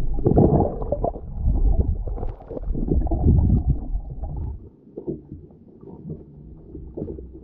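Muffled underwater sound through an action camera's waterproof housing: low, uneven rumbling of water stirred by a swimmer. It eases off about two-thirds of the way through to a quieter wash with a few faint taps.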